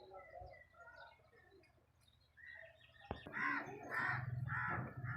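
Small birds chirping, then a crow cawing loudly about four times in quick succession in the second half.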